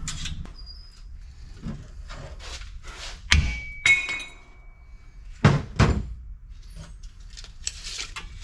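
Steel stock clanking: two sharp metal knocks that ring on briefly, then two more knocks a couple of seconds later.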